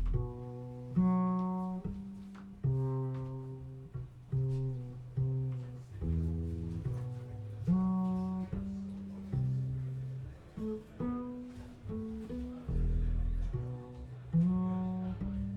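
Instrumental music played back over a high-end stereo system of TAD loudspeakers and Electrocompaniet electronics: a slow line of deep plucked string notes, each struck sharply and ringing away, with no singing.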